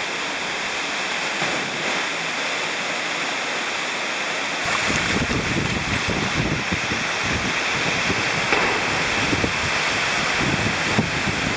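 Rushing water of a canyon stream and waterfall, a steady hiss. About a third of the way in, heavier uneven splashing and low rumbling join it, as the camera moves through the water.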